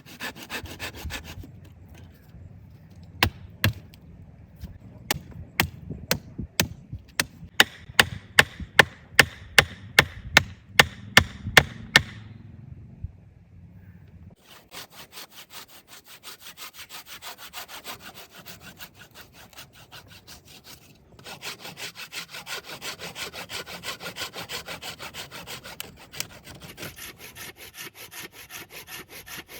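Wood being worked by hand: first a run of sharp knocks about two a second, then, from about halfway in, a hand saw cutting through wood in quick, even back-and-forth strokes.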